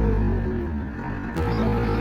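Background music with a steady low drone, dipping briefly in the middle, with a sharp click about a second and a half in.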